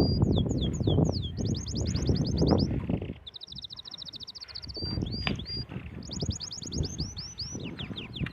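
Canary singing: fast trills of repeated high notes broken by quick falling whistles. A loud, uneven low rushing noise runs underneath.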